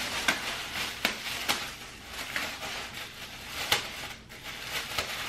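Thin disposable plastic cap crinkling and rustling as it is pulled on over the hair and tucked in, with several sharp crackles of the plastic.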